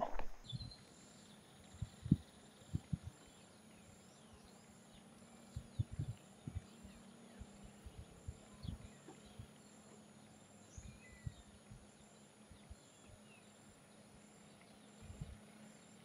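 Quiet outdoor ambience at a marshy lagoon edge: scattered short, low thumps and bumps, faint brief bird chirps in the distance, and a steady high-pitched pulsing in the background, about two pulses a second.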